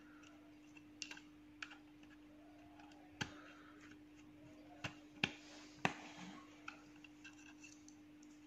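Small screwdriver clicking and ticking against the screw terminals and wire leads of a Carel IR33 temperature controller as a sensor wire is fastened. There are a handful of separate sharp clicks, the strongest about three seconds in and twice between five and six seconds, over a faint steady hum.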